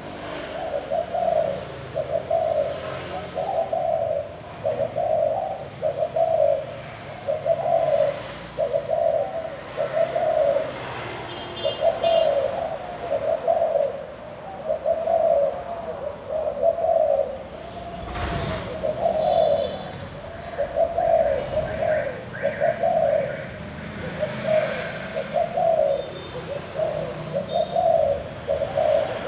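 A caged Thai spotted dove of the pale 'vân rồng' variety cooing over and over, a low coo about every second with no real pause: the continuous cooing breeders take as a bird in full form.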